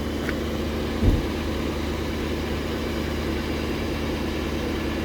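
A heavy engine idling steadily, with one short low thump about a second in.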